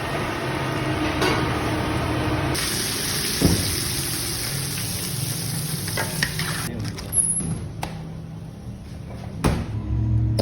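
Food frying on a hot street-stall grill: a steady, bright sizzling hiss that cuts off suddenly about two-thirds of the way through. It is followed by a few sharp clicks and knocks.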